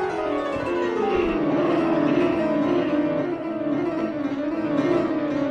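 Background instrumental music played on a keyboard instrument, with a wavering melody over sustained chords.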